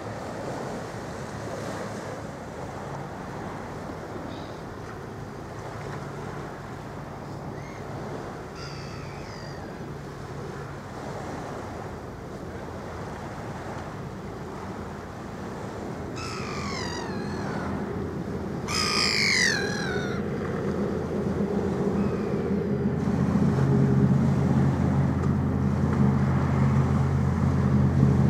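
Water and wind noise at the harbour edge, with gulls giving a few falling calls past the middle. Towards the end a large ferry's engines hum low and steadily, growing louder as the ship comes head-on towards the shore.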